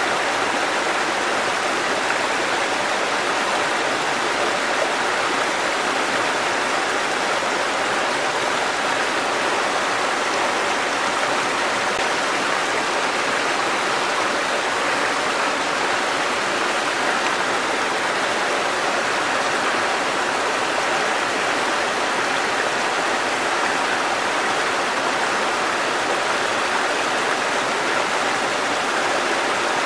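A small waterfall: a thin curtain of water falling onto rocks and into a pool, splashing in a steady, unbroken rush.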